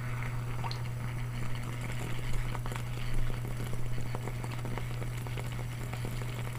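Mains-powered Peter Davey water-heating device dunked in a glass of water: a steady electrical hum, with irregular crackling and sizzling as the water is heated at its cups. The crackle builds about half a second in and keeps up, at times louder.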